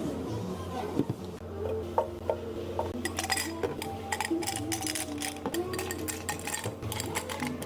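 Cups, dishes and metal utensils clinking as drinks are made, over soft background music: a few single clinks early, then a quick run of clattering from about three seconds in.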